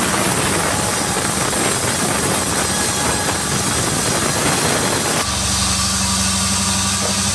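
Sawmill running with the saw cutting through jackfruit wood, a dense hissing noise over the engine. About five seconds in, the cutting noise stops suddenly and the engine runs on steadily.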